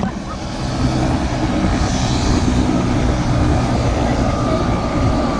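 Helicopter in flight, its rotor and engine giving a loud, steady drone heard from inside the cabin.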